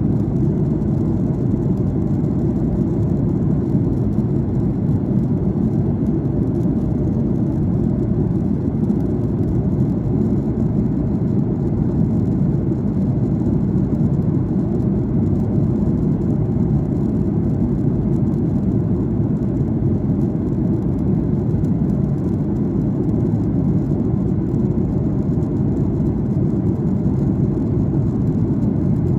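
Steady low cabin noise inside an airliner descending: the engines and the air rushing over the fuselage make an even, unchanging rumble.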